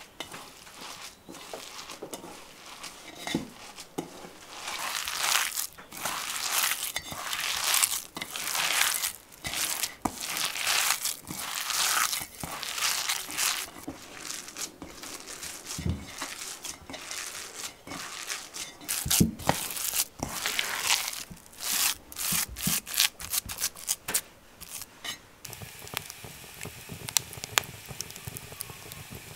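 Irregular rustling, crinkling and rubbing, with scattered small clicks and knocks, coming in short uneven bursts.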